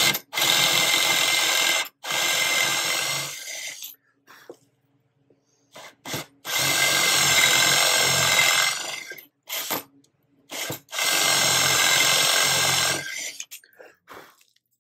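Power drill boring a 1-inch blind hole into a hardwood railing with a Forstner bit, a steady motor whine with the bit chewing wood. It runs in four spurts of two to three seconds with short pauses between, as the hole is taken down to a depth mark.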